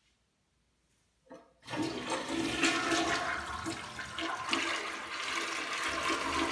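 Household toilet flushing: a short click about a second in, then water rushing and swirling through the bowl.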